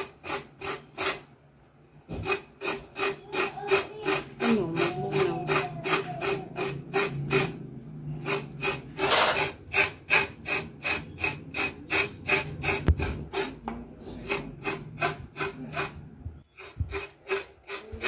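Half a coconut scraped hard against the serrated blade of a kaguran, a traditional Filipino hand coconut grater, in quick repeated strokes of about three a second, pausing briefly about a second in.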